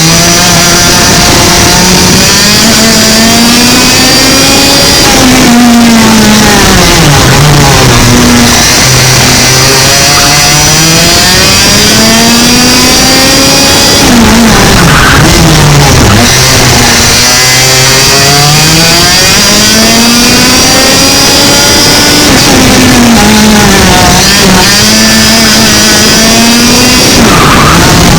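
A 100cc two-stroke kart engine at full throttle, recorded on board. Its pitch climbs steadily over several seconds and then drops quickly, about four times, as the kart speeds up and slows through a lap.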